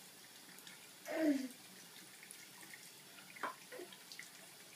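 Thin stream of water running from a bathroom tap through a faucet extender into the sink, faint and steady. A short vocal sound from a small child comes about a second in, and a few faint clicks come a little after three seconds.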